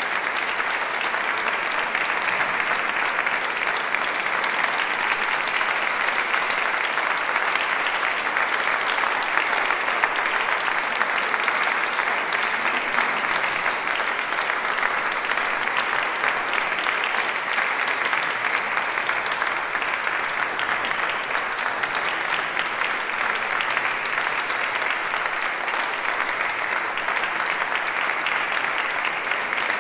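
Audience applauding, a dense and even clapping that keeps on without a break.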